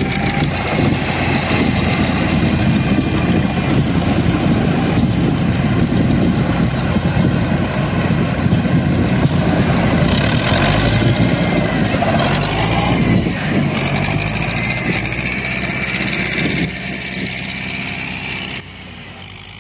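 Dive boat's engine running steadily under a dense rushing noise. It drops in level about two seconds before the end.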